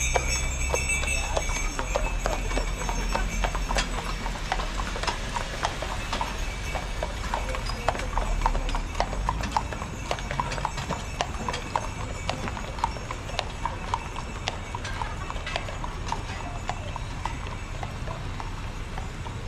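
Horses' hooves clip-clopping on the road as a horse-drawn wagon passes, a quick run of sharp hoofbeats that thins out near the end.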